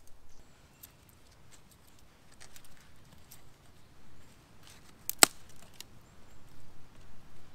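Small dry sticks being handled and laid on a bed of ash, with light scattered clicks and rustles and one sharper click about five seconds in.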